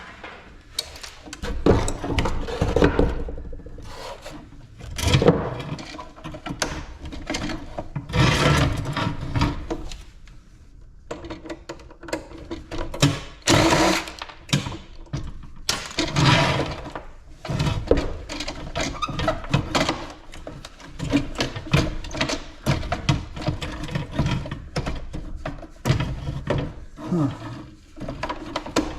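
Tools at work taking apart a small ice maker for scrap: an irregular run of knocks and clatter of metal and plastic parts, with several longer noisy bursts lasting a second or two.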